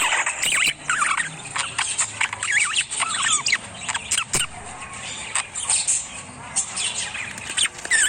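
Parrots squeaking and chirping in quick, wavering high calls, mixed with frequent sharp clicks and taps.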